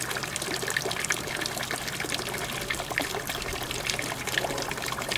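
A stream of water pouring from a pipe into a small pond, splashing steadily on the surface.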